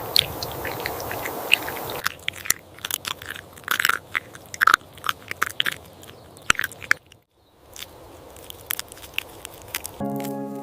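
Crisp crunching, like bites or chewing of something hard, in many short separate cracks; a music bed comes in near the end.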